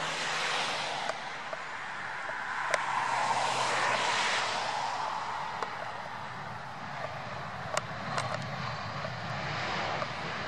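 Airbus A320-family jet airliner touching down and rolling out, its engine noise swelling about three seconds in, then easing as it slows. A few sharp clicks stand out over the engine noise.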